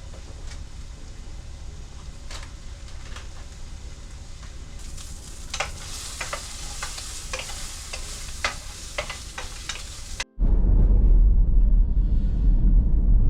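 Food sizzling in a pan, with scattered sharp clicks of a utensil. The sizzle grows louder about halfway through, then an abrupt cut about ten seconds in switches to the loud, steady low rumble of a car driving.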